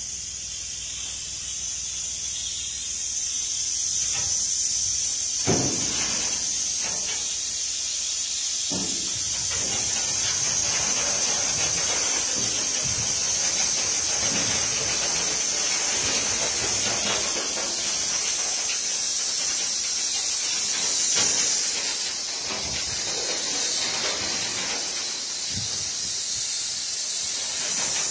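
Steady high hiss of compressed air driving the pneumatic tipping cylinders of a Dumpcar self-unloading railway wagon as its body tips, with a few short knocks in the first ten seconds.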